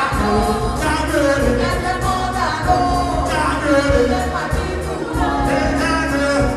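Live music: a singer, with a voice or voices joining in, over a band or backing track with a steady beat and heavy bass.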